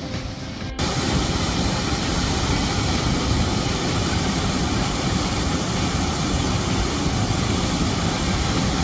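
Waterfall's rushing water: a loud, steady roar that starts abruptly less than a second in.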